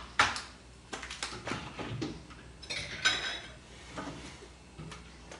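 Kitchen clatter: a metal baking pan set down on the countertop with a sharp clank, then a run of lighter knocks and clinks of dishes and cutlery, with one ringing clink about three seconds in.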